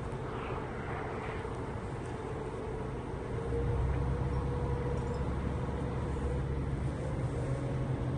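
Crane engine running steadily, getting louder about three and a half seconds in.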